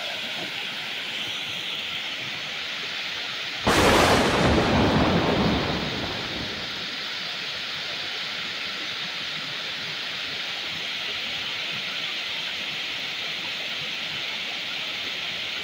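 Waterfall and fast river water rushing steadily over rocks. About four seconds in, a sudden loud burst of deep noise cuts in and fades out over about two seconds.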